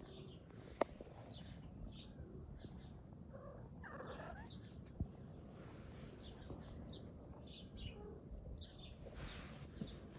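Faint, scattered bird chirps over low background noise, with a single sharp click about a second in.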